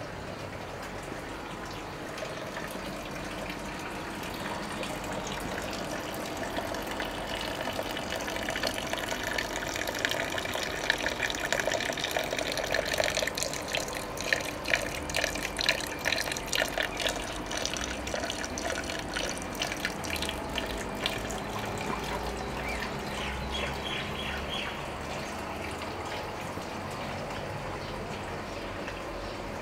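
Water splashing and gushing steadily, with a dense crackle that swells toward the middle and eases off again.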